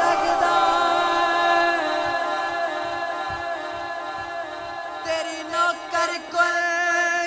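Unaccompanied devotional singing of a naat: voices holding a long, steady note that slowly fades. A few short sharp clicks come about two seconds before the end.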